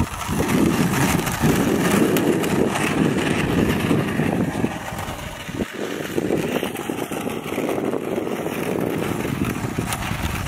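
Golf cart running steadily as it drives over asphalt, with a sharp click about five and a half seconds in.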